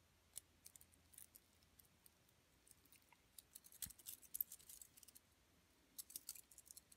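Faint, scattered clicks and light metallic jingling of an Apple Watch stainless steel link bracelet, its links knocking together as the band is handled and wrapped around a wrist, in small clusters near the start, in the middle and near the end.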